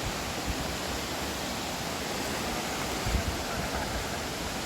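Steady rushing of a waterfall, an even roar of falling water, with a few brief low bumps, the strongest about three seconds in.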